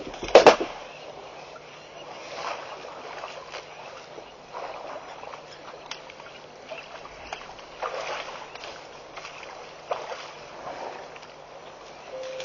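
African elephants at a waterhole spraying and splashing water with their trunks: one loud whooshing spray about half a second in, then several softer splashes every couple of seconds.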